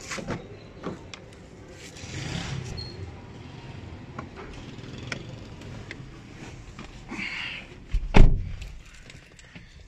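A Toyota Corolla's door shut from inside with one heavy thump about eight seconds in. Before it come light clicks and rustling as the driver gets in.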